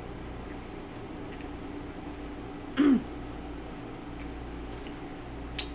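Person eating close to a microphone: faint mouth and chewing clicks over a steady low hum, with one brief throat-clearing sound about three seconds in and a single sharp click near the end.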